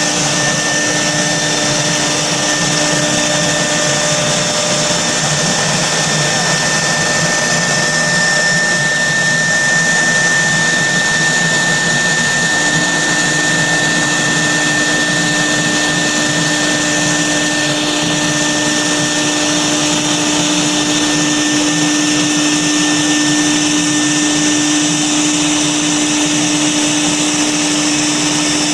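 CNC router spindle running at speed and cutting through a 3–4 mm composite panel: a steady, continuous whine with held tones over a rushing noise.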